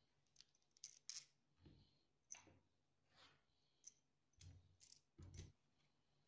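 Faint clicks and knocks of small hardware and wood being handled: steel bolts with washers and nuts clinking as they are picked up, and the wooden strips knocking softly as they are lifted, with two duller knocks near the end.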